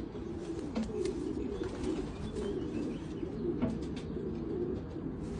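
Domestic racing pigeons cooing steadily, several low wavering coos overlapping at once, with a few faint clicks among them.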